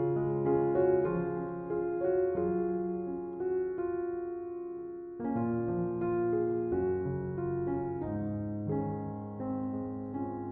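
Piano music: chords and melody notes struck one after another and left to ring and fade, with a short lull about halfway through before the next chord.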